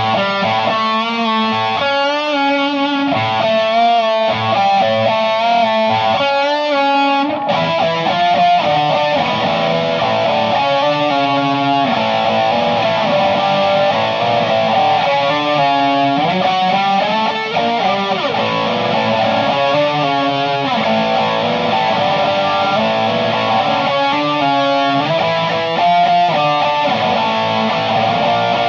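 Electric guitar played through a Naughty Amps Li'l Bitch amp head into an Orange speaker cabinet, on a crunchy, lightly distorted tone. It starts with picked single notes and arpeggios, then about seven seconds in moves to fuller strummed chords.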